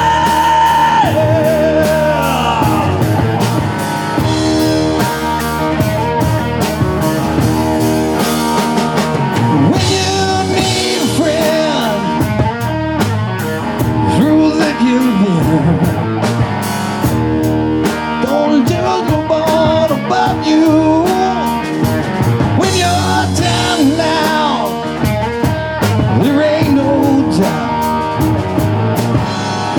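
Live rock band playing, with electric guitar, drums and a singer.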